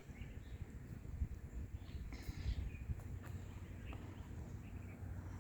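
Faint outdoor ambience: a steady low rumble with a few faint bird chirps and light clicks.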